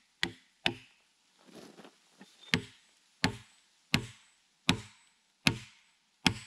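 Axe poll hammering wooden wedges into a log to split it lengthwise. Sharp wooden knocks: two quick blows, a short pause, then six steady blows about every three-quarters of a second.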